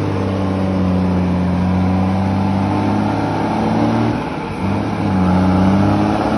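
Heavy diesel truck engine pulling hard under load through deep mud, its note dipping briefly about four seconds in before picking up again.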